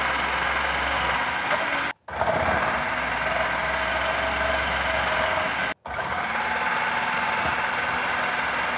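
Electric food processor running with its shredding disc, grating turnip halves that are pressed down the feed tube. The motor noise is steady and cuts out abruptly twice for a moment.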